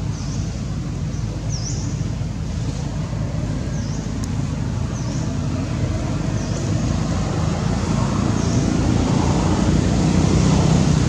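Steady low rumble of outdoor background noise, swelling near the end, with a short high chirp repeating every second or two.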